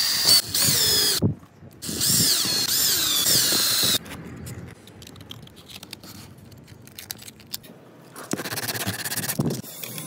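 Cordless drill driving a screw into a steel hinge, its motor whine rising and falling in pitch as the trigger is worked, in two runs over the first four seconds. Quieter clicks and handling noise follow, with a short louder noisy stretch a little past eight seconds in.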